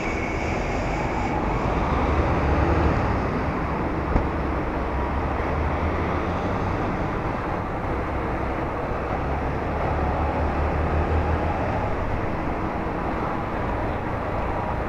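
Motorcycle engine running steadily while riding, mixed with road and wind noise. A brief knock about four seconds in.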